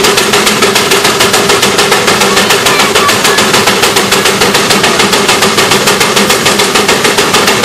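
Steam traction engine running, its exhaust chuffing from the stack in a fast, even beat of about seven or eight puffs a second, with a steady hum underneath.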